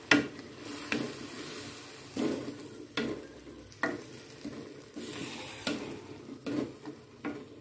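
A spatula stirring shrimp and petai beans in a nonstick wok over a steady sizzle of frying, with a scrape against the pan about once a second.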